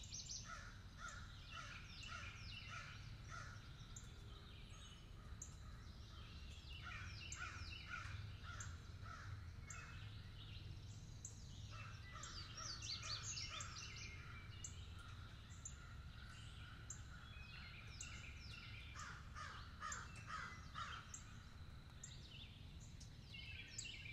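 Crows cawing faintly, in bouts of several quick caws every few seconds.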